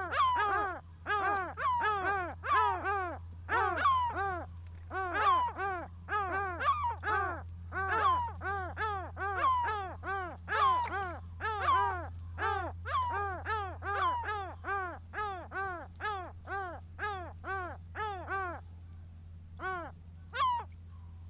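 Seagulls calling in a rapid run of short cries, about two a second, growing fainter in the second half, with a last lone cry near the end. A steady low hum runs underneath.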